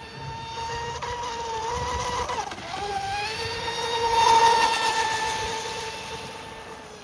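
Cozy RC M700 radio-controlled boat running on a 4S battery: a steady high whine from its electric motor and propeller. The pitch dips briefly about two and a half seconds in and then recovers. It gets louder, peaking around four to five seconds in, then fades.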